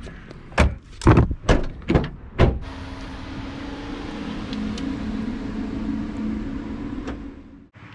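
A handful of sharp clicks and knocks as the Dacia Spring's front charging-port cap and flap are closed. Then, about two and a half seconds in, a steady low hum with tyre noise as the small electric car pulls away across the paving; it cuts off suddenly near the end.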